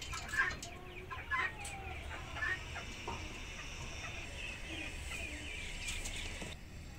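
Chickens clucking and chirping in short calls, with a run of quick repeated chirps near the end.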